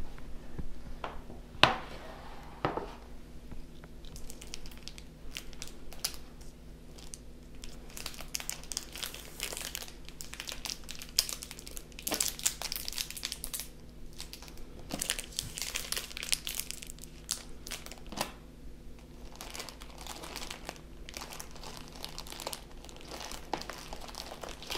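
Plastic zip-top bags and packaged polymer clay blocks crinkling and rustling as hands rummage through a plastic storage bin, with a couple of sharp plastic clicks about two seconds in.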